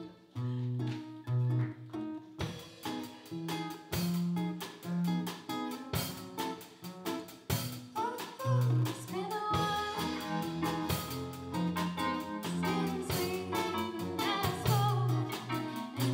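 Live student band playing a pop song on acoustic guitar and keyboard; the drum kit comes in about two and a half seconds in, and singing starts about eight seconds in.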